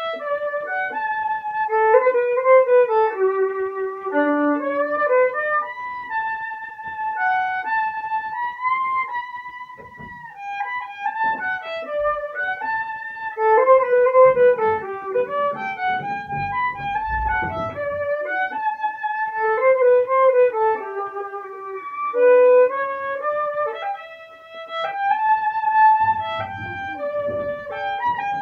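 Solo violin playing a bowed melody, note after note, in phrases, with short breaks about ten seconds in and again near twenty-four seconds.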